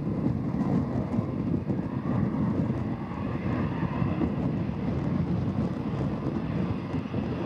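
Twin-engine jet airliner at take-off power, running down the runway and lifting off, a steady low rumble of engine noise. Gusty wind buffets the microphone throughout.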